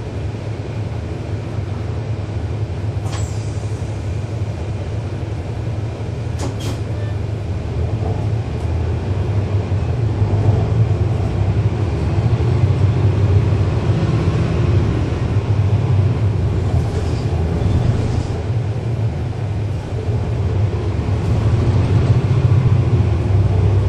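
Inside a NABI 40-SFW transit bus under way, its Cummins ISL9 straight-six diesel engine drones steadily. The engine grows louder about eight seconds in and again near the end. Two sharp clicks come in the first several seconds.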